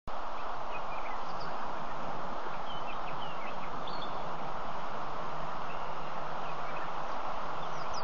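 Steady bush ambience at a waterhole: an even, dense hiss with scattered short bird chirps throughout.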